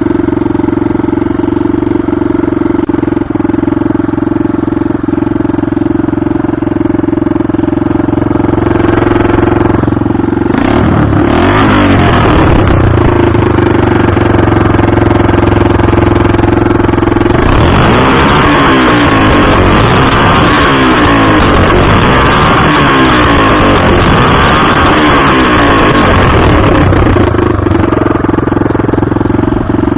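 Hartford VR 150 motorcycle engine running with its exhaust removed. It idles steadily, is revved briefly about a third of the way in, then is blipped up and down again and again for about ten seconds from a little past halfway, while the rider tries to make it misfire.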